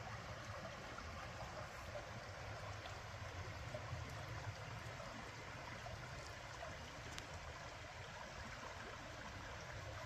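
Shallow creek running over a rocky bed: a steady babble and trickle of water.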